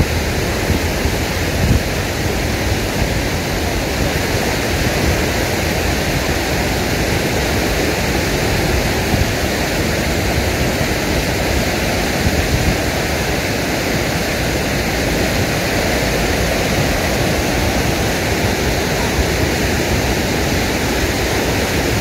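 Stream water rushing over a line of stepping stones: a steady, even rushing with no breaks.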